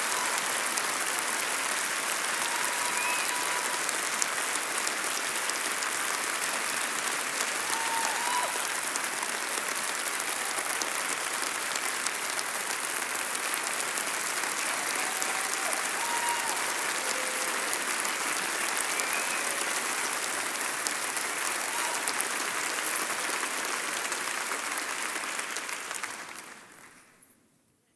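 Large congregation applauding steadily for a long stretch, then dying away near the end.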